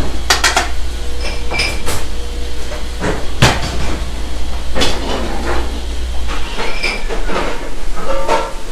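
Busy kitchen clatter: a series of sharp knocks and clanks from pans, plates and utensils on metal counters, the loudest about three and a half seconds in. A steady low hum runs underneath and drops away about two-thirds of the way through.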